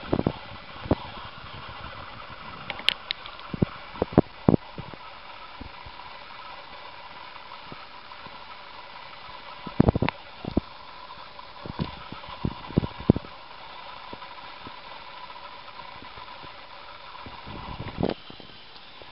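A hamster moving about its cage, making scattered sharp clicks and knocks on its wooden tube toy and bedding, in clusters near the start, around ten seconds in and near the end, over a steady background hum.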